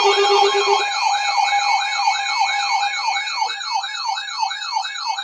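Emergency alert signal: steady alert tones under a siren-like sweep that rises and falls about three times a second. A low pulsing tone drops out about a second in.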